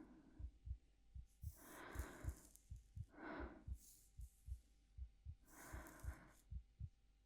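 A heartbeat recorded close up, going steadily at about 75 beats a minute as soft double thumps (lub-dub), with slow, soft breaths over it about two, three and six seconds in.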